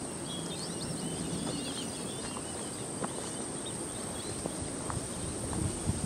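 Steady high-pitched insect drone, with bird chirps twittering over it in the first couple of seconds and a few faint ticks.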